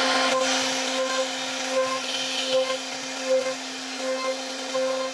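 CNC router spindle running with a steady whine as its bit carves a pattern into a wooden panel. A higher cutting tone swells and fades about every three-quarters of a second as the cutter moves through the wood.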